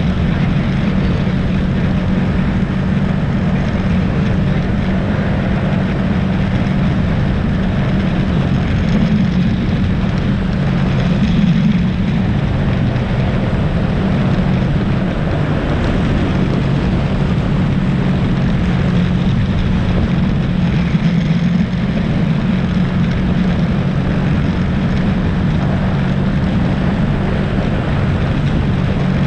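ATV engine running steadily at cruising speed, a constant drone with rushing noise underneath.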